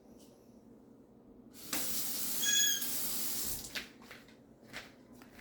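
Water running for about two seconds as a little more is added to a cup of protein powder, followed by a few light clicks of the cup or spoon being handled.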